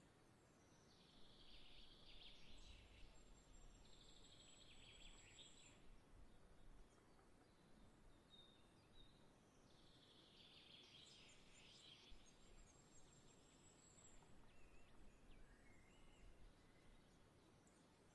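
Faint songbird twittering in three rapid, jumbled phrases of about two seconds each, with a thin, very high steady tone sounding on and off behind them.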